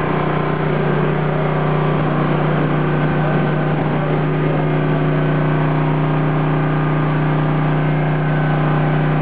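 A machine running steadily: a constant hum at one low pitch that does not rise or fall.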